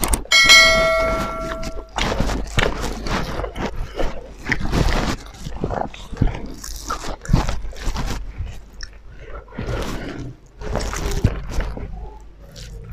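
Close-up mukbang eating sounds: wet chewing, lip-smacking, and fingers squelching and mixing rice with curry, in a run of short smacks and clicks. A short steady electronic chime sounds from the start to about two seconds in.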